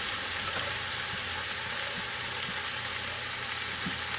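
Sliced leeks and chicken pieces frying in olive oil and rendered chicken fat in a hot pan, a steady sizzle, with a couple of light clicks in the first half second.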